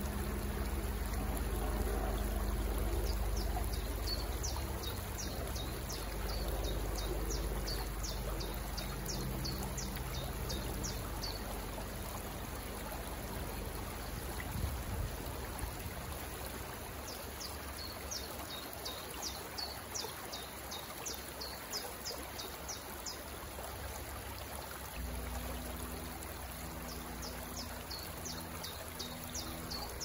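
Water running and trickling steadily, like a small stream or outflow at a lake. Over it a songbird repeats rapid runs of short, high, quickly falling notes, in two long runs and once more near the end.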